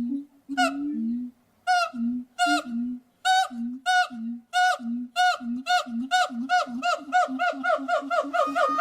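A primate calling in a long series of short, pitched hoots, two or three a second, low notes alternating with higher ones. The calls come faster near the end.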